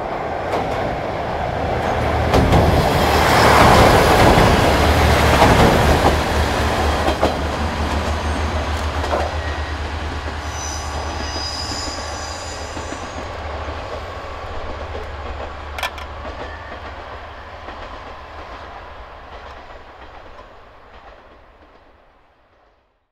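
JR Shikoku 1500 series and 1200 series diesel railcars coupled as one train, running along the line with wheels clattering over rail joints. The sound is loudest about four seconds in and then slowly fades away to silence just before the end. A brief high-pitched wheel squeal comes around the middle.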